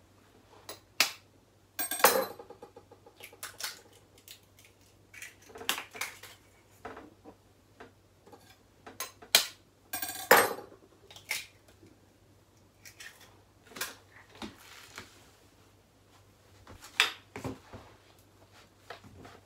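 Eggs being cracked with a knife over a plastic bowl of cottage cheese, with a utensil knocking and scraping in the bowl: scattered sharp taps and clinks at irregular intervals, the loudest about two and ten seconds in.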